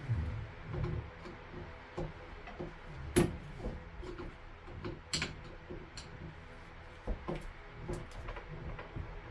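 Flathead screwdriver prying at a Delta tub faucet cartridge: scattered short metal clicks and scrapes, the sharpest about three seconds in. The cartridge is stuck fast in the valve body.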